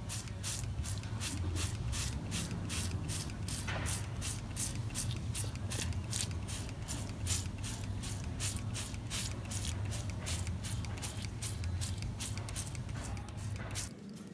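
Hand trigger sprayer being pumped rapidly, about three squirts a second, each stroke a short spray hiss as thick rust-removing gel is sprayed onto a steel chassis rail. A steady low hum runs underneath and stops abruptly near the end.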